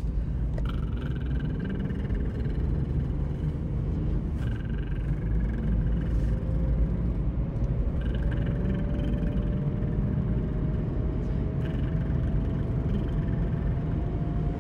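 Steady engine and road rumble inside a moving car's cabin at cruising speed. Faint short tones recur every few seconds over it.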